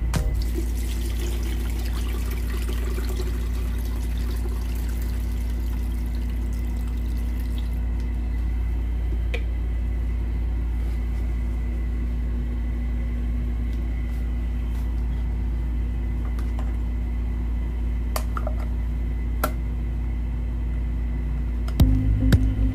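Steady rush of running water over a low, even hum, unbroken throughout, with a few faint clicks of handling.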